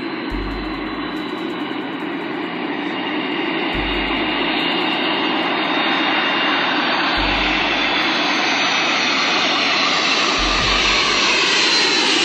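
Airplane engines roaring steadily and slowly growing louder, with a high whine creeping up in pitch and a deep low pulse about every three and a half seconds.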